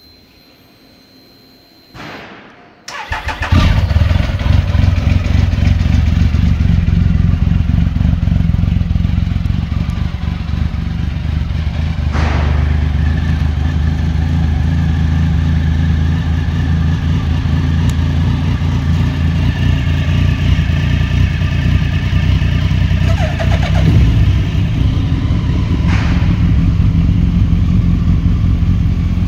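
Motorcycle engine cold-started: the starter cranks briefly about two seconds in, the engine catches about a second later and settles into a steady idle. Later the sound is a Suzuki Hayabusa's engine idling through its aftermarket slip-on exhaust.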